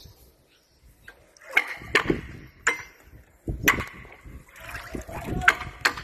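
A knife blade driven through a small fish on a wooden chopping stump by blows from a wooden stick: about six sharp knocks, starting about a second and a half in.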